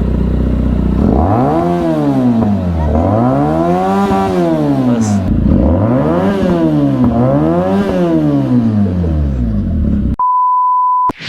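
Benelli 300 parallel-twin motorcycle engine revved four times, its pitch rising and falling smoothly with each blip of the throttle. Near the end, a steady electronic beep tone about a second long.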